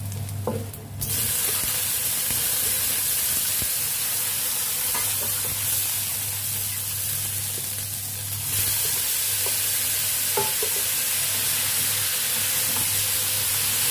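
Blanched, still-wet broccoli and straw mushrooms hitting hot oil in a steel wok, setting off a loud sizzle about a second in that grows louder again around eight seconds in. A wooden spatula stirs and scrapes the vegetables, with a few short clicks against the wok.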